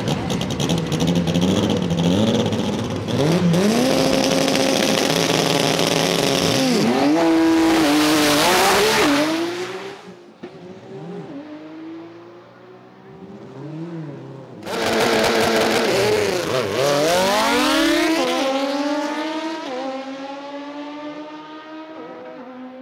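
Drag-race car engines at full throttle on quarter-mile passes, each pitch climbing and then dropping back at every gear change. There are two separate runs: the first fades out about ten seconds in, and the second starts abruptly about fifteen seconds in and fades as the cars pull away.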